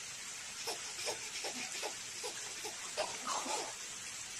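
Baby laughing in short, repeated bursts over a steady background hiss.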